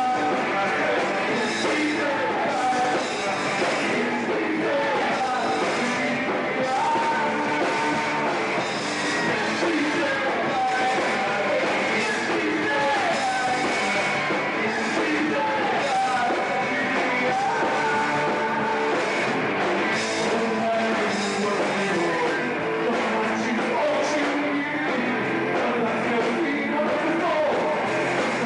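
Heavy metal band playing live: electric guitars, bass and drums with a male lead singer.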